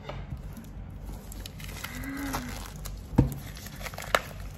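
Clear plastic shrink wrap crinkling as it is cut with a knife and pulled off a card-deck box, with a sharp knock about three seconds in and a smaller one about a second later.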